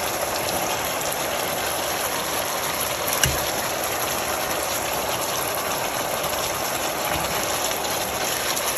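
Chicken curry simmering in a pot on a gas stove with a steady hiss as its liquid cooks down, while pieces of bell pepper are tipped in; a single knock about three seconds in.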